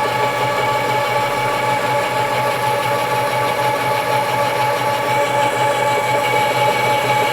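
Gear-head metal lathe running steadily, its geartrain giving a constant whine of several held tones over a steady hum.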